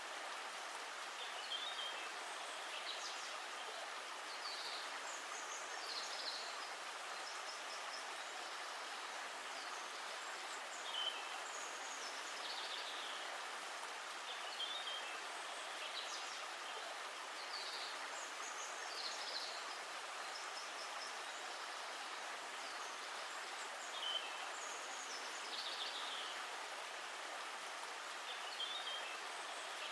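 Steady rush of running water, with small birds chirping in short high calls every second or two throughout.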